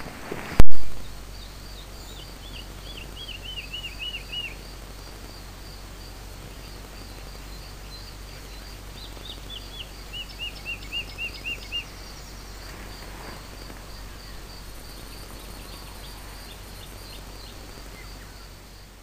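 Outdoor ambience with a songbird singing two runs of quick repeated chirps, the first a few seconds in and the second near the middle, over a steady low background hum and a faint high chirp repeated evenly throughout. A sharp click about half a second in is the loudest sound, and everything fades out at the end.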